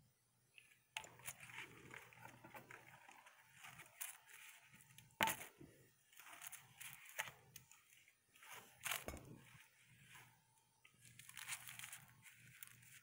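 Paper CD sleeves rustling and crinkling as the discs are handled and slid against them. The rustling comes in repeated short spells, with a few sharp clicks and taps of the discs, the loudest about five seconds in.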